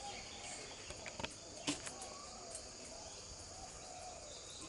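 Steady, faint, high-pitched insect chorus, with two or three short sharp clicks between one and two seconds in.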